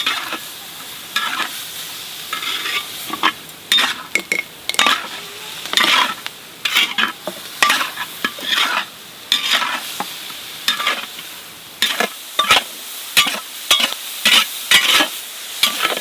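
Meat sizzling in a hot pan while it is stirred, with many short, irregular scrapes and clicks of the utensil against the pan over a steady hiss of frying.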